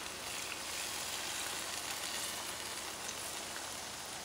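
Beef cubes, vegetables and broth sizzling steadily in a hot cast iron skillet while red wine is poured in.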